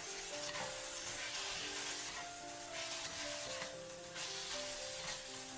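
Shredded pork, chillies, ginger and garlic sizzling in hot oil in a wok as a metal spatula stirs and tosses them, the dark soy sauce just coating the meat; the sizzle swells with the tosses. Soft background music with held notes plays underneath.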